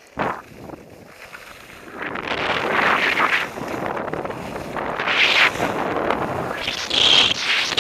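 Wind rushing over an action camera's microphone and skis scraping over packed snow during a downhill run, the noise getting louder about two seconds in and then swelling and fading several times. A brief sharp knock just after the start.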